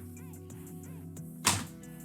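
Background music playing, with one sharp key strike from a 70-year-old typewriter about one and a half seconds in.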